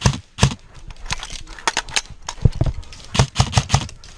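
Airsoft guns firing: sharp clacks in short irregular bursts, several clusters with gaps between them.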